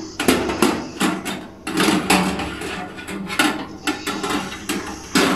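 Metal parts being handled inside a countertop electric oven: a run of irregular clanks and knocks, several a second at times, as racks or fittings are shifted and fitted into place.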